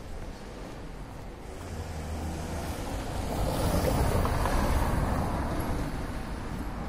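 A car driving past, its engine and tyre noise swelling to a peak about four seconds in and then fading away.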